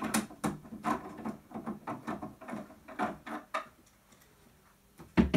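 Long metal screwdriver prying at the seam of a Macintosh Plus's plastic case: a quick series of clicks and scrapes for about three and a half seconds, then a pause and two loud knocks near the end. The case seam is stuck and still has not let go.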